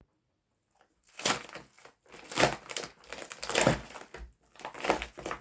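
Packaging rustling and crinkling in a string of noisy bursts as a parcel is opened by hand, starting about a second in.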